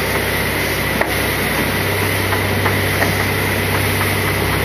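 A fishing boat's engine running steadily: a constant low drone with a steady high whine over it, and a sharp click about a second in.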